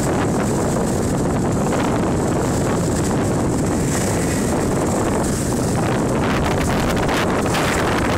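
Strong wind buffeting the microphone, steady throughout, over the rush of rough, choppy water and spray around a small fishing boat under way in 4–6 ft waves.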